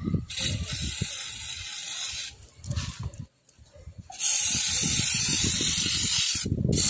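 Aerosol chain lubricant spray hissing out of a can's straw nozzle onto a motorcycle chain, in two bursts: a quieter one of about two seconds, then a louder one of about two seconds starting about four seconds in.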